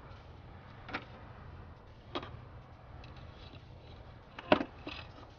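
A few scattered light clicks and knocks from intake tube and air box parts being handled during the work, the sharpest about four and a half seconds in, over a steady low hum.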